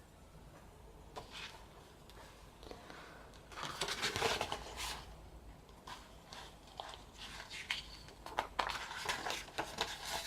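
Paper and card being handled: a small photo book taken out and its pages turned, with rustling and light taps, loudest about four seconds in and with a quick run of short rustles near the end.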